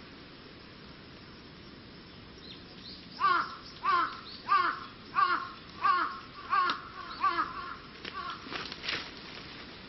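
A crow cawing about seven times in an even series, each harsh caw about two-thirds of a second after the last, starting about three seconds in.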